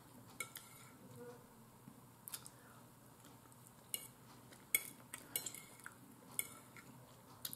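Metal fork clicking and scraping against a plate in faint, irregular taps, several spread across the few seconds.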